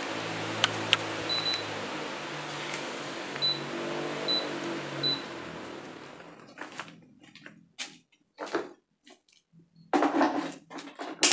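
Electric pedestal fan running: a steady rush of air over a low motor hum, which dies away about six seconds in. After that come several short bursts of noise, the loudest near the end.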